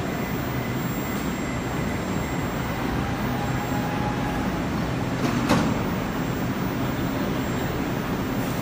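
Steady mechanical hum of a Moskva-2020 metro train standing at an underground platform with its doors shut, with one sharp clank about five and a half seconds in.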